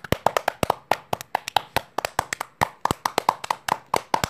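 Hands clapping: quick, uneven claps, several a second, like a small group applauding.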